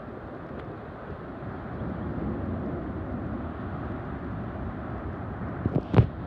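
Wind rushing over the phone's microphone with the low rumble of big surf breaking on the reef, and a loud bump of wind on the microphone near the end.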